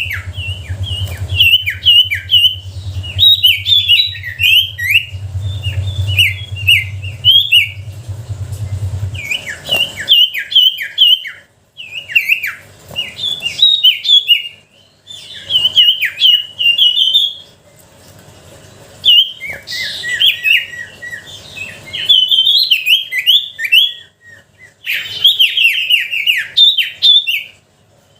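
A sirtu songbird singing a lure (pancingan) song of rapid, sharp chirping phrases in bursts of a second or two, with brief pauses between them. A steady low hum lies underneath for the first nine seconds or so, then stops.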